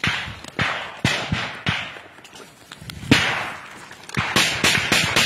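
Gunfire: sharp shots, each followed by an echoing decay, coming singly and irregularly at first, the loudest about three seconds in, then a quicker string of shots near the end.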